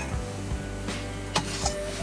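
Steel thermos cap being twisted open: a few sharp clicks and scrapes, the loudest about a second and a half in, over quiet background music with held notes.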